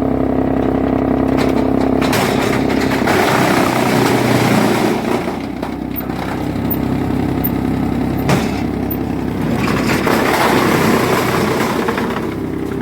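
Heavy-duty wood chipper running with a steady, even hum, rising twice to a louder, rougher noise lasting a few seconds each, with one sharp knock between them.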